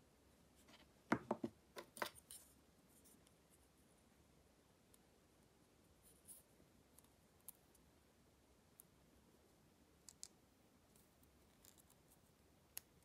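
Sharp clicks and snaps of plastic model-kit parts being handled and fitted. A quick cluster comes about a second in, then a few scattered faint ticks.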